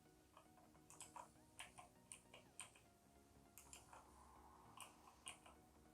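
Faint, irregular clicking of a TechnoZone E22 mechanical keyboard's blue switches as keys are pressed, about a dozen clicks.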